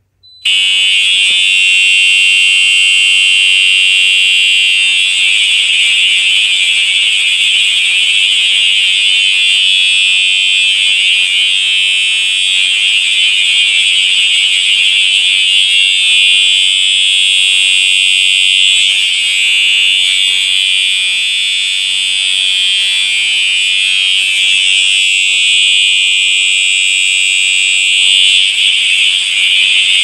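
Fire alarm horns, among them a Siemens MT horn strobe, sounding one loud, steady continuous horn tone, set off by a manual pull station. They start about half a second in and keep going without any on-off pattern.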